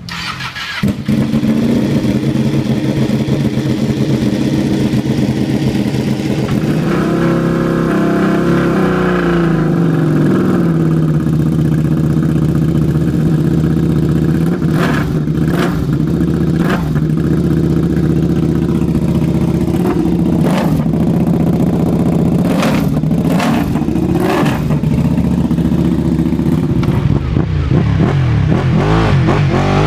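KTM RC8 V-twin superbike engine running on a paddock stand and being revved by hand, the pitch rising and falling once, with several sharp blips and cracks from the exhaust. Near the end another sportbike is heard riding by.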